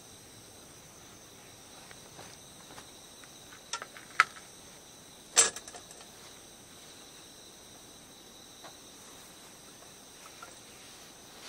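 Crickets trilling steadily. Over them come handling noises from a hurricane kerosene lantern and a matchbox: a couple of sharp clicks, then a louder brief rasp about halfway through, followed by a few small ticks.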